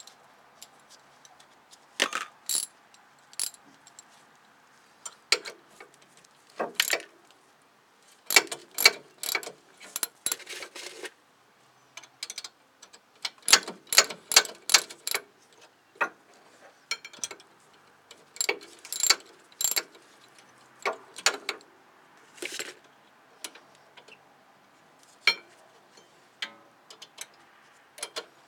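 Socket ratchet wrench clicking in runs of quick clicks, with short pauses between strokes, as it turns a long bolt braced against a rust-seized brake rotor to press the rotor off its hub.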